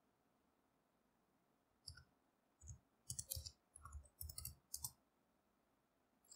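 Faint keystrokes on a computer keyboard: about ten quick clicks between two and five seconds in, typing a sudo password and pressing Enter.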